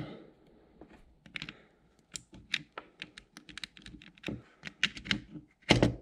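Irregular small plastic clicks and taps as a USB plug is jabbed at the USB port of an electrical outlet and will not go in, with a louder knock near the end. The port's contact tabs have been pried up too high for the plug to enter.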